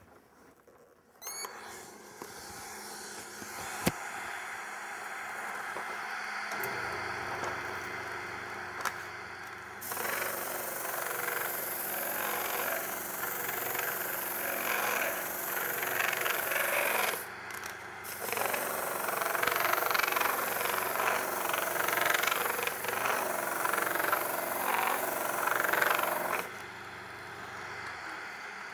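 Wood lathe running with a steady low hum, joined about ten seconds in by the rough hiss of sandpaper, wrapped around a straight board, rubbing along the spinning wooden rolling pin. The sanding breaks off briefly around the middle and stops near the end, leaving the lathe running.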